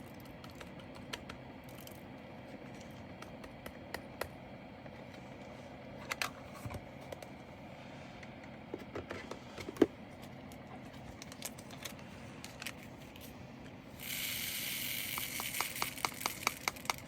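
Small resin diamond-painting drills clicking and ticking as they are handled, then a short sandy pour of drills about three seconds before the end, running into a quick patter of clicks.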